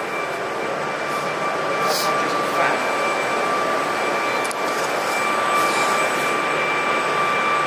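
A steady rushing drone with a constant high whine running through it, unchanging in level. It sounds like a helicopter, but it might be a large fan.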